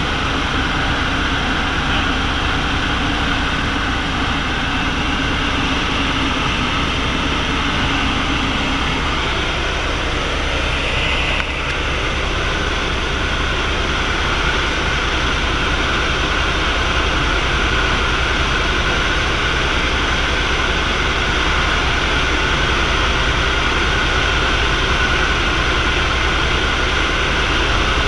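Helicopter engine and rotor noise heard from inside the cabin in flight: a loud, steady drone, with a brief dip and change in tone about eleven seconds in.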